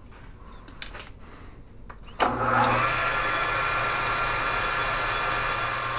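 South Bend lathe switched on about two seconds in: the motor and drive bring the spindle and four-jaw chuck up to speed and then run steadily, with a low hum and a steady high whine.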